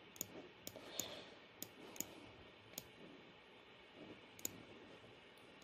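Faint, irregular clicks of a computer mouse, about seven of them, with a light hiss between.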